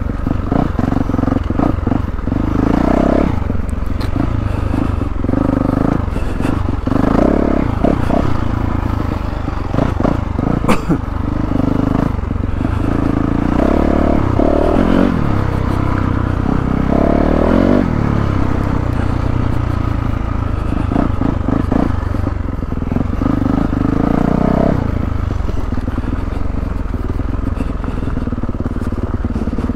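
2022 Yamaha YZ450F's single-cylinder four-stroke engine running on a dirt trail, its note rising and falling with the throttle in several short pulls. A single sharp click about eleven seconds in.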